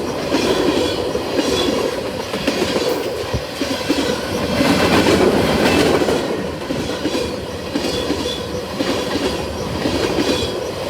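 Freight train cars rolling steadily past close by, their wheels clacking over the rail joints.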